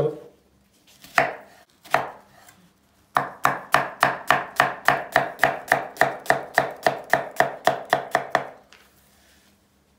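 Chef's knife cutting an onion on a wooden cutting board: two single cuts, then steady chopping at about four strokes a second, the blade knocking on the board each stroke, stopping near the end.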